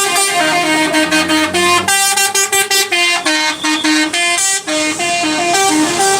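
Indonesian bus 'telolet' musical horn playing a long tune of short notes that step quickly up and down between a few pitches, with several horn tones sounding together.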